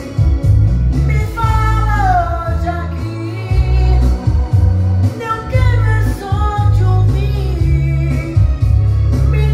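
Gospel hymn sung by a solo voice over a backing track with a prominent bass line; the voice glides between notes and holds them in long phrases.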